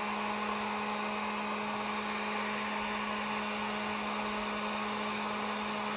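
Handheld hot-air blower running steadily, a constant fan-motor hum with airy hiss, warming the adhesive of a newly fitted iPhone camera lens so that it sets.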